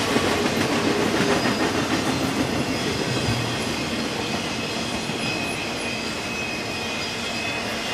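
Norfolk Southern intermodal freight cars, mostly empty well cars, rolling past on the rails in a continuous rumble of wheels on track. Faint high-pitched wheel squeal sets in during the second half, and the sound eases a little toward the end.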